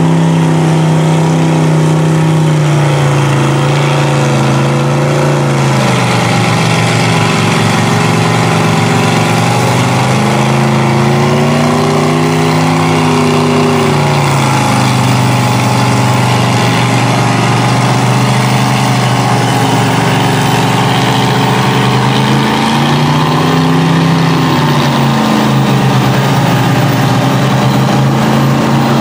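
Big-block engine of a monster mud truck on tractor tires revving as it churns through mud, its pitch rising and falling in slow swells a few seconds long.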